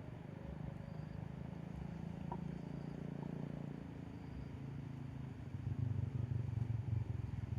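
A motor engine running with a low, rapidly pulsing rumble that gets louder about five and a half seconds in.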